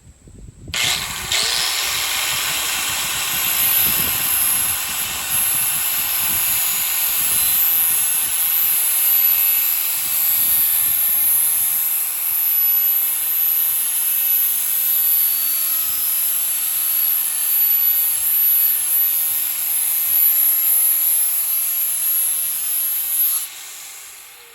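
DeWalt electric sander switched on about a second in, running steadily with a high whine as it grinds the dull edge of a steel machete blade to sharpen it. It is switched off near the end, and its pitch falls as the motor winds down.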